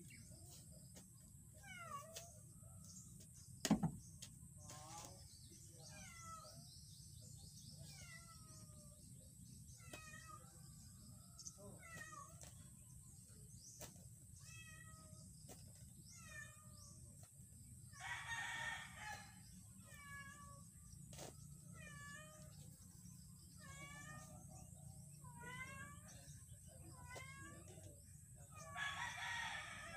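Faint animal calls: many short chirping calls repeat throughout, with two longer, harsher calls about eighteen seconds in and near the end. A single sharp thump about four seconds in is the loudest sound.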